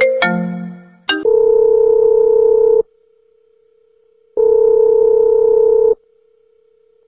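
A phone's marimba-like ringtone melody trails off about a second in, then a telephone ringback tone sounds: two long buzzy beeps, each about a second and a half, with a pause of about the same length between them.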